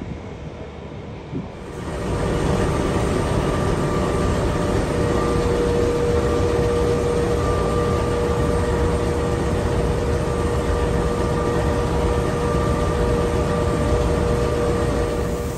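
Pacific National diesel locomotive idling: a steady engine rumble with a constant high hum, loud from about two seconds in.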